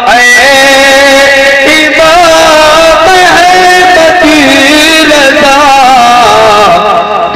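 A man singing a manqabat, an Urdu devotional praise poem, in long held notes that waver and slide, pausing briefly near the end.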